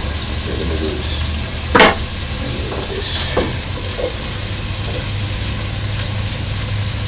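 Diced potatoes and garlic sizzling as they fry in a pot on a gas stove. There is a sharp knock about two seconds in as the cutting board meets the pot, and a short burst of louder hiss about three seconds in as more potato is scraped into the hot pot.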